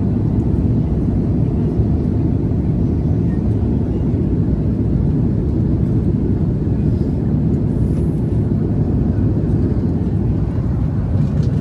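Steady low rumble of an airliner's passenger cabin in flight: engine and airflow noise heard through the fuselage.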